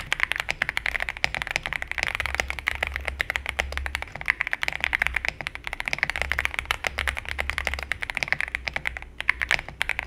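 Fast, steady typing on an Epomaker Shadow S TKL mechanical keyboard, with its stock Mulan switches and keycaps in a plastic case with a polycarbonate plate: dense key clacks, heard partly with and partly without the silicone and foam dampening under the PCB. The typing thins to a short pause just before the end.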